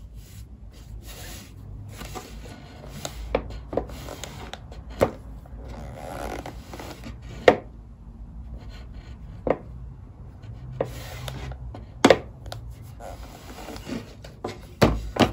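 Hands rubbing and smoothing cotton fabric pieces on a tabletop, then a clothes iron being handled and pushed over the fabric. Several sharp knocks come through, spaced a second or more apart, as the iron and fabric are handled and set down on the table.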